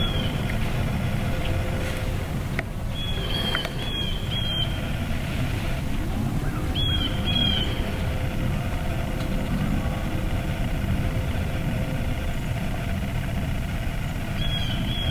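Steady low rumble with a small bird's short high chirps, coming in small groups at the start, about three to four seconds in, about seven seconds in, and near the end.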